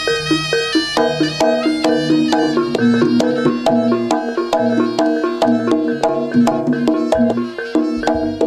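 Jaranan gamelan accompaniment: struck metallophones play a quick repeating melody over drum beats, with frequent sharp percussive clicks.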